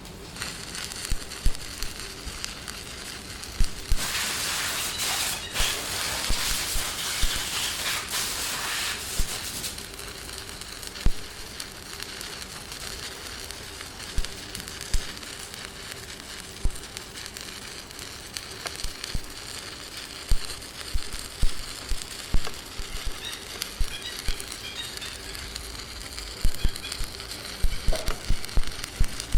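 Electric arc welding on an excavator hydraulic cylinder: a steady crackling sizzle with irregular sharp pops. About four seconds in it turns into a louder hiss for some five seconds, then falls back to the crackle.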